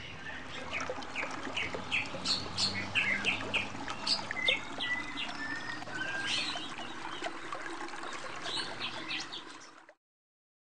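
Birds chirping, many short overlapping calls with a few longer whistled notes, over a steady background hiss. It fades out near the end.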